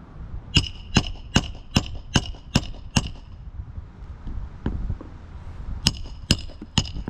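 A hammer striking a roof snake to drive roofing nails back into an asphalt shingle, with sharp metallic ringing blows. There are seven evenly spaced strikes, then a pause and three more near the end.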